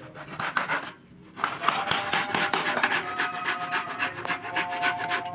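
A hand tool worked on wood in rapid back-and-forth rasping strokes, with a short pause about a second in.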